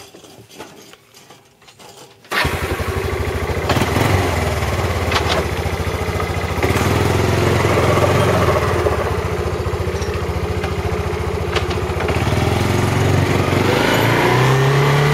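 A small pull-start gasoline engine catches abruptly about two seconds in and then runs steadily and loudly, picking up speed near the end.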